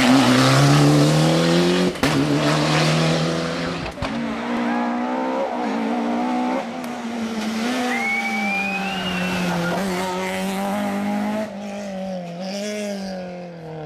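Rally cars driven hard one after another on a tarmac stage: engines revving high, pitch climbing and dropping with the throttle and gear changes. A short tyre squeal comes about eight seconds in, and the last car fades as it drives away.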